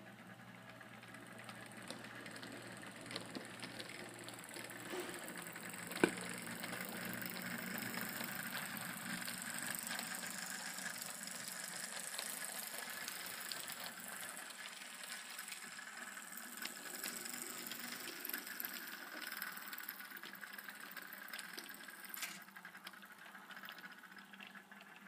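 HO-scale model coal train of loaded hoppers rolling past, its wheels clicking and rattling steadily over the track. It grows louder over the first dozen seconds and fades towards the end, with one sharp click about six seconds in.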